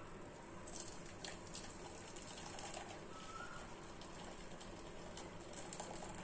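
Hot spiced milk tea pouring from a steel saucepan through a mesh tea strainer into a steel bowl: a faint, steady trickle with a few light clicks.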